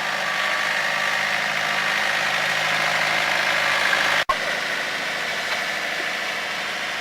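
Engine of tree-planting machinery running steadily at a constant speed, with a brief sudden dropout about four seconds in.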